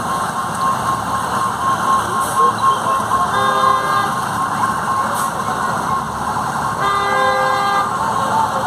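A vehicle horn honks twice, each blast lasting under a second, about three and a half and seven seconds in, over the steady noise of vehicle engines running in traffic. A faint rapid high beeping repeats in the background.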